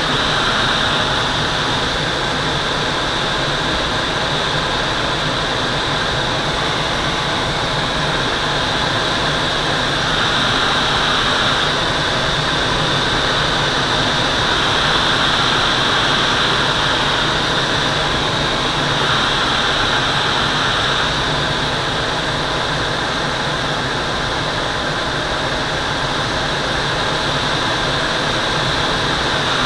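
Steady rush of air streaming over a Twin Astir glider in flight, heard inside the cockpit.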